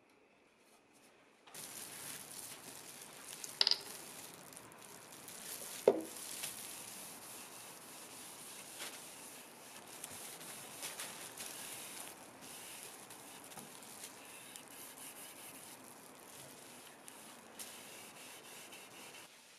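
Cotton-gloved hand rubbing finish over a walnut seat board: a continuous dry wiping sound that starts about a second and a half in after near silence, with two sharp clicks about two seconds apart early in the rubbing.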